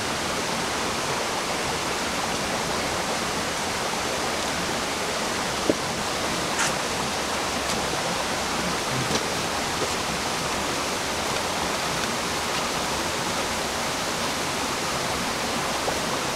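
Steady rushing of creek water, an even hiss without let-up, with a brief knock about six seconds in.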